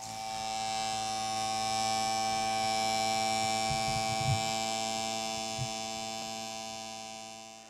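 Synthesized logo-intro drone: a held, buzzing chord of many steady tones that swells in at the start and slowly fades out near the end, with a few soft low thumps around the middle.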